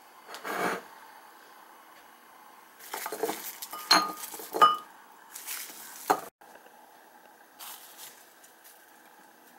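Dishes and bowls clinking and clattering in a few short bursts as breakfast is dished out. Two ringing clinks about four and four and a half seconds in are the loudest.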